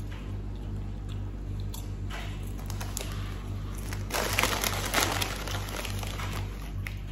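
Crunching and crinkling of potato chips being eaten from their bag, loudest from about four to six seconds in, over a steady low hum.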